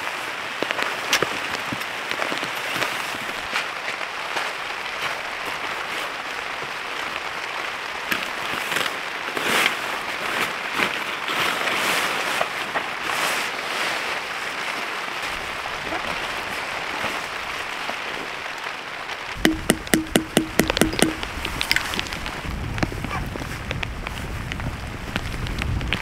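Heavy rain falling steadily. About twenty seconds in comes a quick run of about ten sharp knocks over a second and a half, and after it a low rumble of wind.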